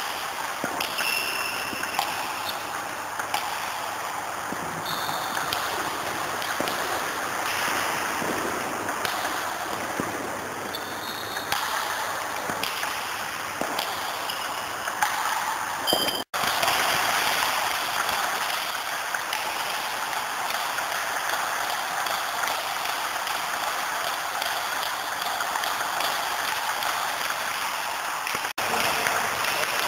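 Dense, continuous clatter of table tennis balls in a reverberant sports hall during multiball training: balls fed in quick succession, struck by bats, bouncing on the table and scattering across the floor. The sound drops out for an instant about 16 seconds in and again near the end.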